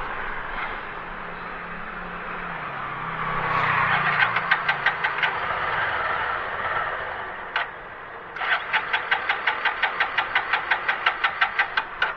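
Bajaj Platina single-cylinder engine being cranked by its starter in two tries, a short one about four seconds in and a longer one from about eight seconds in, each a rapid even chugging of about seven to eight beats a second that never catches. The helper later blames a carburettor flooded with petrol.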